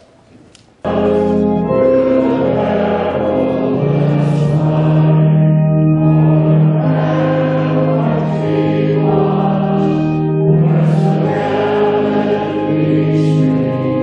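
A national anthem sung by many voices over sustained instrumental accompaniment, starting abruptly about a second in.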